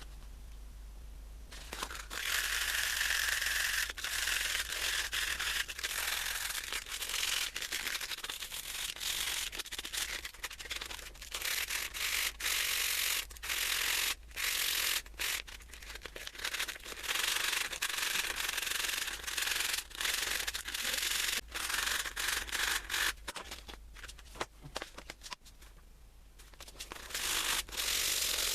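Abrasive rubbing on metal, as in sanding rust off a part, going in quick scrubbing passes with many brief breaks. It starts about a second and a half in, dies down a few seconds before the end and picks up again near the end.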